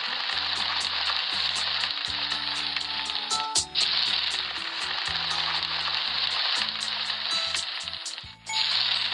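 Grilling sizzle sound effect from a cooking game: a steady frying hiss that cuts out briefly twice, about three and a half and eight and a half seconds in.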